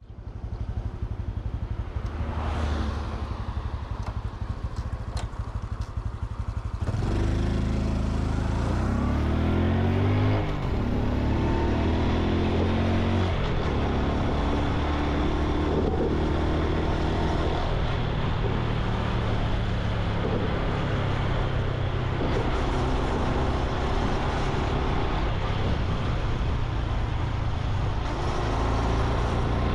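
Honda Super Cub C125's single-cylinder four-stroke engine running while riding. About seven seconds in it pulls away harder, its pitch climbing, dropping and climbing again in steps as it shifts up through the gears, then it settles into a steady cruising note.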